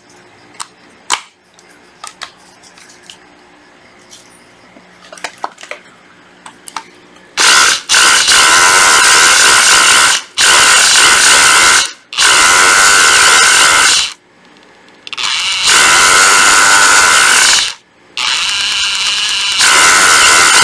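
A Hikoki 14V cordless rotary hammer drills into a wooden block in hammer mode, in repeated loud runs of two to three seconds with short breaks, starting about seven seconds in. Before it starts, faint clicks come from the bit being fitted into the chuck.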